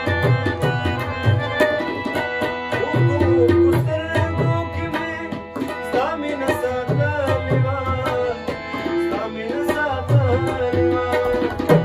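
A Pashto ghazal played live: harmonium held chords and tabla strokes keep time throughout, and a man sings wavering, ornamented lines in two phrases, the first about three seconds in and the second near the end.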